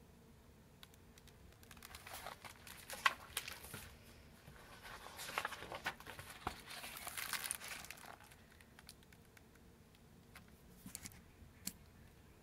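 Paper rustling and crinkling as the pages of a hardback picture book are handled and turned, in two stretches of a few seconds each, followed by a couple of light clicks near the end.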